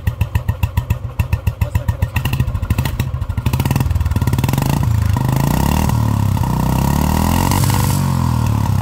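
Restored 1980 Royal Enfield Bullet's single-cylinder four-stroke engine idling with a slow, even thump at about four to five beats a second, then revved up a few seconds in and held at higher revs.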